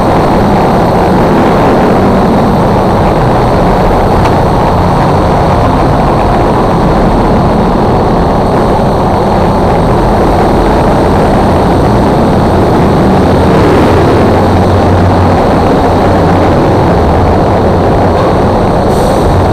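Steady, loud rushing drone from a motorcycle underway: wind noise over the dash-mounted camera mixed with the engine's low hum and passing traffic. The low hum strengthens in the second half.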